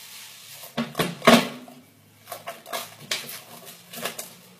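Plastic cling film being pulled and torn off its roll to cover a bowl of dough, crackling in a series of short rips, the loudest cluster about a second in.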